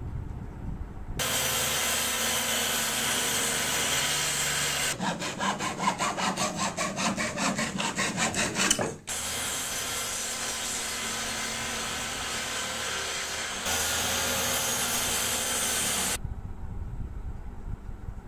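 Table saw running and cutting through a wooden board, with a rapid pulsing stretch in the middle of the cut. The loud saw noise stops a couple of seconds before the end.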